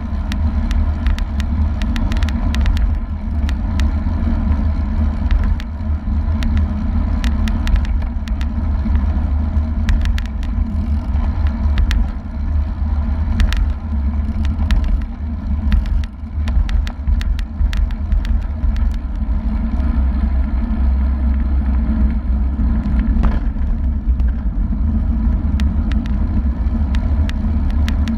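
Wind rushing over a bike-mounted action camera's microphone at road-riding speed, about 35 km/h, as a steady deep rumble with tyre and road noise, and scattered clicks and rattles from the bike.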